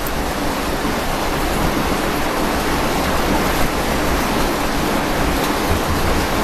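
Steady rushing hiss of background noise, with no distinct events.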